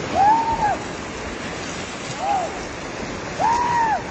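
Rushing floodwater of a river in spate, a steady noise throughout, with three short high-pitched calls that rise and fall: one right at the start, one about two seconds in and a longer one near the end.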